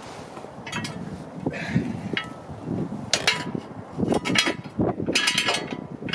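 A series of irregular clinks and knocks of metal being handled, most of them in the second half.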